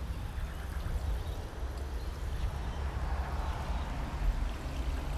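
Water sprinkling from a plastic watering can's rose onto compost and soil around a newly planted tomato: a soft hiss that is strongest a little past halfway. A steady low rumble runs underneath.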